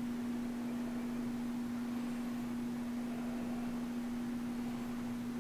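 Room tone: a steady low hum over faint hiss.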